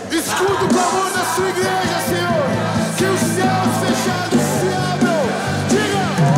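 Live worship band playing a loud rock-style song: drum kit driving the beat under singing voices.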